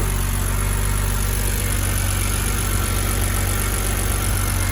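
2009 BMW 328i xDrive's N52 inline-six idling steadily while still misfiring, even with a new DISA valve fitted.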